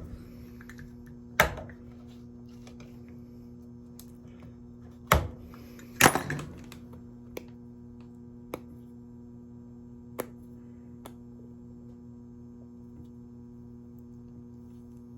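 Steady electrical hum, with a few sharp knocks and clicks of small brass scrap being handled and worked on: the loudest about a second and a half in and twice around five to six seconds in, then fainter ticks.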